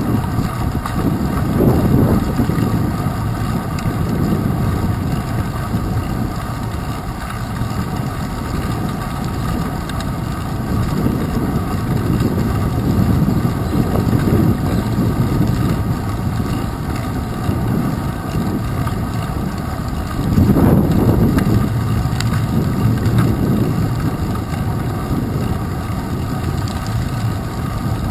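Wind buffeting the microphone of a handlebar-mounted GoPro Hero 2 and the rumble of a bicycle rolling over wet pavement, a steady low rumble that swells louder about two seconds in and again about twenty seconds in.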